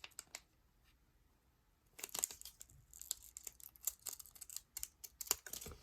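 Yu-Gi-Oh! booster pack's foil wrapper being torn open and crinkled: a quick run of short crackles and rips starting about two seconds in, after a near-silent pause.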